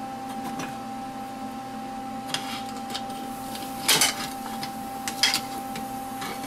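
Magnetic welding squares and a spring clamp pulled off a freshly welded steel part and set down on a steel welding table: a few sharp metal clanks, the loudest about four seconds in, over a steady hum.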